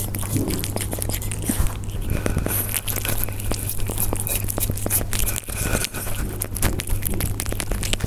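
Persian cats eating close to the microphone: a dense, irregular run of chewing and crunching clicks, over a steady low hum.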